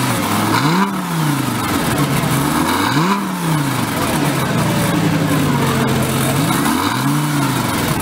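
Lamborghini Gallardo Spyder's V10 idling and revved three times, each blip rising and falling back in pitch: about a second in, about three seconds in, and near the end.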